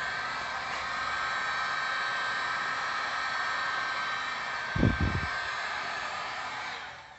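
Electric heat gun blowing steadily with a faint whine while shrinking heat-shrink tubing over a crimped battery-cable lug. A few brief low thumps come about five seconds in, and the blower winds down near the end as it is switched off.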